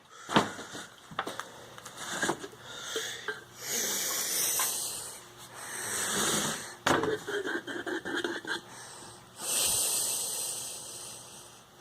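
Brush work with Barge contact cement: scratchy strokes of a glue brush spreading cement, with several sharp clicks and knocks from handling the brush and can.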